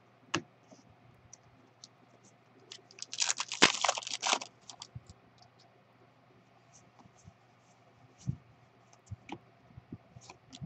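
Trading cards being shuffled through by hand: a dense burst of cards sliding and flicking against one another about three seconds in, then scattered light ticks and a soft tap as cards are set down on the table.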